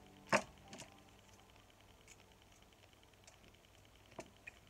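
Hand-painted witch's stones being set down one at a time on a cloth-covered shelf, clacking against each other: one sharp clack about a third of a second in, a softer one just after, and another near the end.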